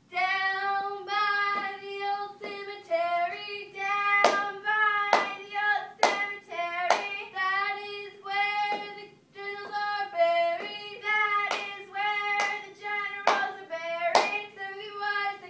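Girls chanting a cheer in a sing-song tune on a few held notes, punctuated by sharp hand claps at about one a second.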